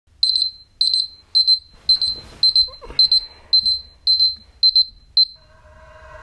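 Smartphone alarm beeping in quick groups of a few high beeps, a group about every half second. It stops suddenly about five seconds in as it is switched off.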